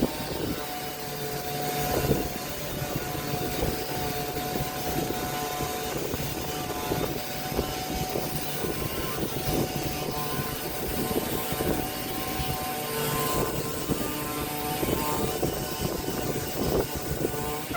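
Electric woodworking power tool running on wood: a steady motor whine over rough, uneven working noise.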